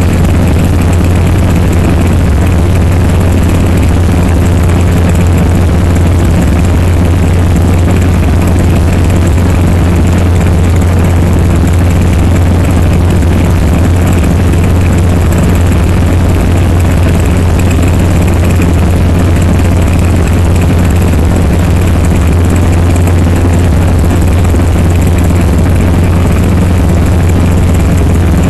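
Cabin noise of a Robinson R22 Beta II helicopter in forward flight: its two-blade main rotor and four-cylinder Lycoming piston engine make a loud, steady drone with a deep low hum.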